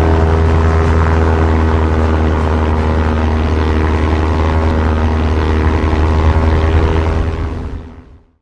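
Propeller airplane engine running steadily with a deep drone, fading out in the last second.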